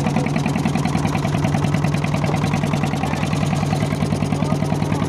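An engine running steadily at an even speed, with a fast regular pulse.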